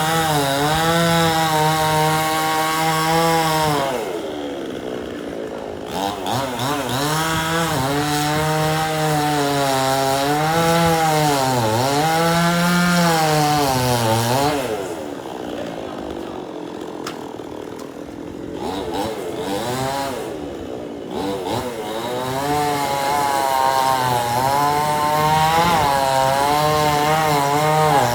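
Chainsaw run at full throttle in three long spells, its pitch sagging and recovering as the chain bites into wood, dropping back to a quieter idle in between.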